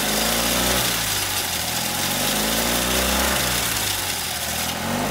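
A small car engine running steadily, its pitch swelling a little about two to three seconds in. A makeshift fan belt of zip ties is driving the alternator and cooling fan, and it is flinging off bits as it slips.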